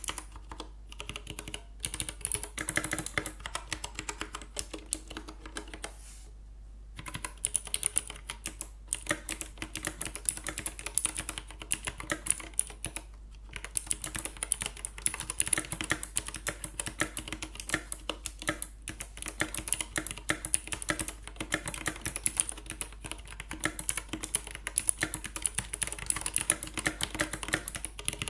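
Typing on a 60% hot-swap mechanical keyboard fitted with a mix of different switches (clicky, tactile and linear: Cherry MX, Gateron, Kailh, Outemu and others), a fast, uneven run of key clicks and clacks. Typing stops for about a second a quarter of the way in, then carries on.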